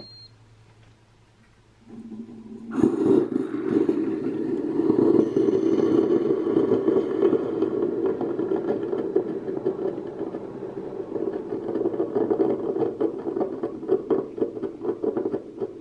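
Ninja single-serve coffee maker starting a brew: a short high beep as the start button is pressed, then about two seconds later a low hum as the pump comes on, followed by its loud, steady pumping noise with a light crackle as hot water is pushed through for the first cup.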